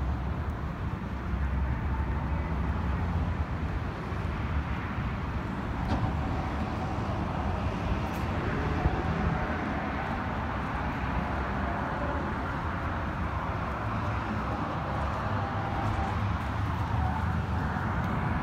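Steady outdoor background noise of road traffic, with wind rumbling on the microphone.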